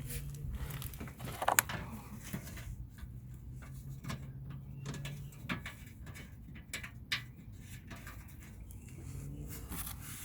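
Scattered clicks and knocks of hand work under a car, as the plastic engine under shield is being refitted, over a steady low hum. One click about one and a half seconds in is louder than the rest.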